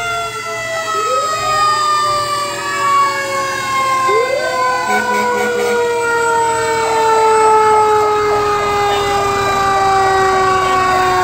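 Fire truck siren wailing. It winds up quickly and then falls slowly, again and again, with a rapid pulsing tone in the middle stretch.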